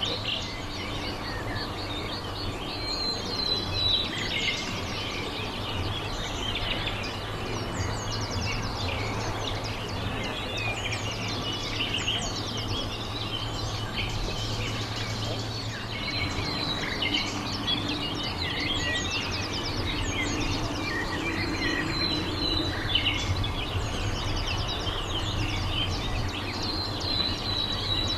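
Small birds chirping and singing throughout, with quick repeated notes and trills, over a steady low hum.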